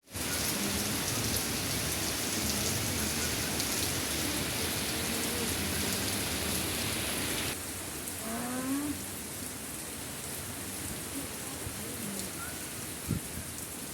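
Steady rain falling, a dense hiss that drops abruptly to a softer level about seven and a half seconds in. A brief rising call sounds about a second after the drop, and a single sharp knock comes near the end.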